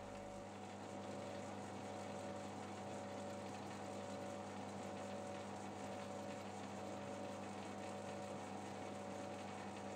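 Small lathe running steadily with a faint even hum while its tool skims the new copper slip rings on a Valeo alternator rotor, truing them so the regulator brushes wear less.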